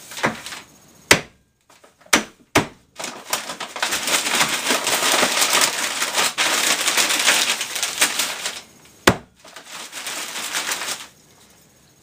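Hammer blows breaking up a bag of dry ice: a few sharp knocks in the first three seconds, then a long stretch of crunching and crackling as the ice is crushed inside the bag, and one more sharp knock about nine seconds in.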